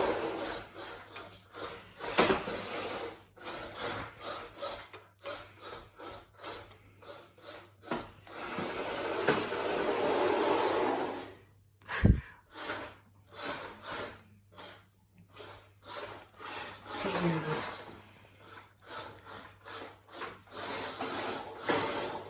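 Beetleweight combat robot shoving against a Dyson DC33 vacuum cleaner: a run of short knocks and scrapes of plastic on the floor and on the vacuum. A longer stretch of grinding comes about eight seconds in, and a sharp knock about twelve seconds in.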